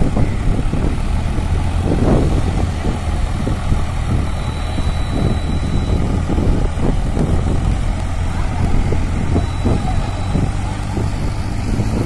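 Mahindra 605 DI tractor's diesel engine running steadily with an even low hum while it manoeuvres and tows a fishing boat across sand. Voices are heard in the background.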